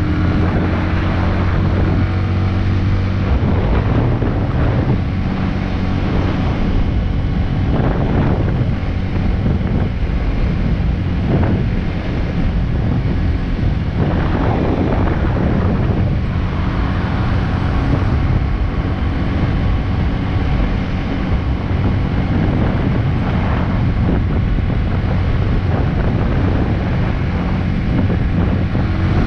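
Big Boy SuperLight 200cc motorcycle's single-cylinder engine running under way, a steady low hum, with wind rushing over the microphone.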